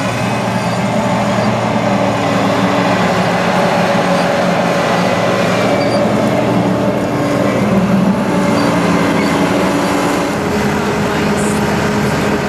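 Combine harvester running steadily, a loud machine drone with a low hum whose pitch shifts slightly every few seconds.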